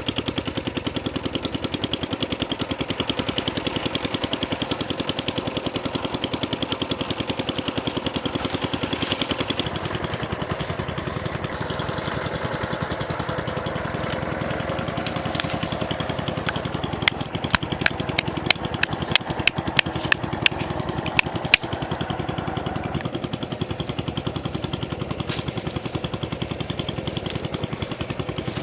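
A small engine running steadily with a fast, even chug. Near the middle comes a quick run of about a dozen sharp clicks.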